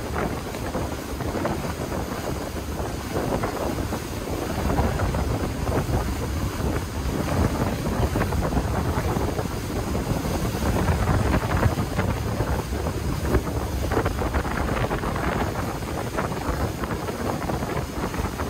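Wind buffeting the microphone over the rush of spray and water off the hull of a motor yacht running fast. It is a steady, noisy rush, a little louder through the middle.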